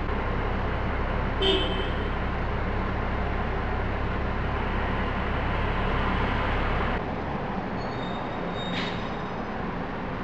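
Steady rushing background noise with no pitch to it. About seven seconds in its deep part drops away and it turns thinner. There are two brief faint high chirps, one early and one near the end.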